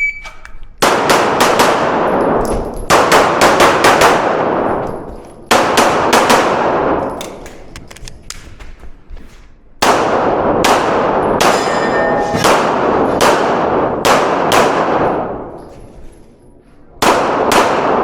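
A short shot-timer beep at the very start, then a competition handgun fired in fast strings of shots with echoing tails, broken by brief pauses for movement or reloads, with metal clangs of steel targets being hit.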